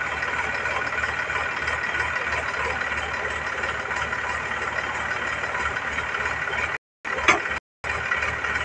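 Sonalika DI 745 tractor's three-cylinder diesel engine running steadily. The sound cuts out twice for a moment near the end, with a short louder knock between the gaps.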